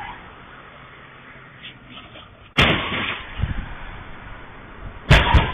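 Vehicle collisions recorded by an intersection security camera's microphone: a loud crash about two and a half seconds in, then a sharp double crash near the end, over steady road noise.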